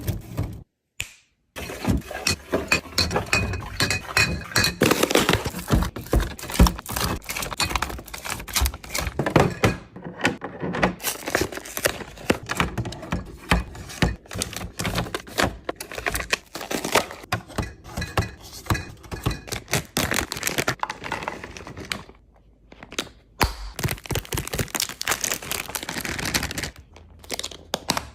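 Close-up handling of packaging and containers while restocking a refrigerator: a steady run of taps, clicks, knocks and plastic crinkling as items are set down and arranged, with brief pauses about a second in and again near the end.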